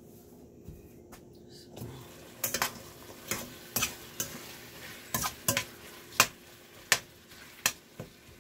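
Chicken pieces sizzling in oil in a stainless steel pot, the sizzle rising about two seconds in as the lid comes off. A metal spoon stirs them, clinking and scraping against the pot about a dozen times.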